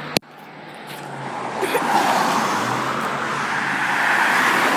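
A single sharp click, then road traffic: a vehicle's engine and tyre noise swells from about a second in and stays loud as it drives past close by. No horn sounds.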